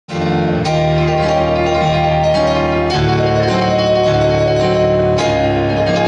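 Stage keyboard playing a slow instrumental intro: full chords struck and held, a new chord every second or so, with no singing or drums yet. The music cuts in suddenly at the start.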